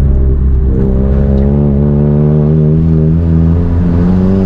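Volkswagen MK7 Golf's turbocharged 2.0-litre four-cylinder, fitted with a big EQT stage 2 turbo and aftermarket exhaust, pulling under load. After a brief dip about half a second in, its note climbs slowly and steadily as the car accelerates.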